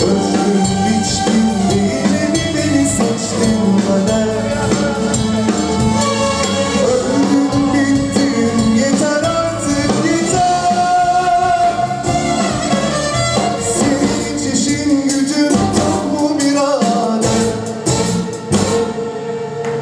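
Live band playing a Turkish song: a male singer over an electric violin, drum kit, bass guitar and keyboard. The music thins out near the end.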